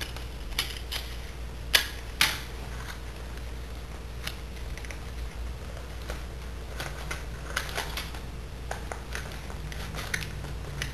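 Folded paper and sticky tape being handled and pressed together: scattered crinkles and small clicks, with two sharper snaps about two seconds in.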